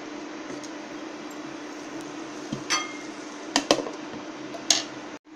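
Glass pan lid clinking against the rim of a metal kadai as it is set on and settled, several sharp clinks in the second half, over a steady hum.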